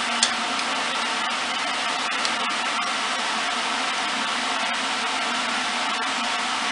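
Workshop machine motor running steadily with an even whirring hiss and a low hum. There is a short sharp tap about a quarter second in and a fainter one about two seconds in.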